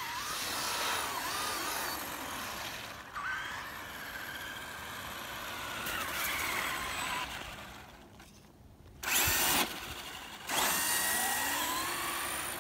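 Electric RC monster truck motor whining, the pitch rising and falling with the throttle, over the noise of its tyres on the road and through snow. Two loud rushing bursts come in the second half.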